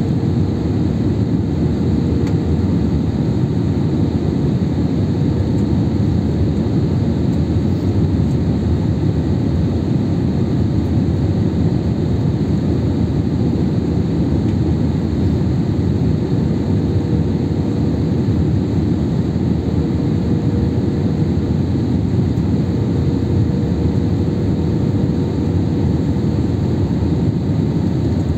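Airliner cabin noise in flight: the steady rush of the jet engines and airflow, heard from a window seat, with a faint steady hum running under the low rumble.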